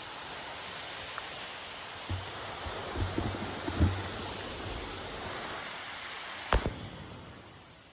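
Steady rushing of wind and surf, with a few dull knocks in the middle and one sharp click near the end.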